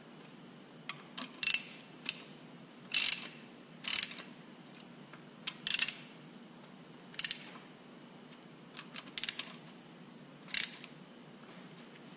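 Ratchet wrench clicking in about eight short bursts, a second or two apart, as bolts in the bottom end of a Detroit Diesel 3-53 block are run down for torquing to 45.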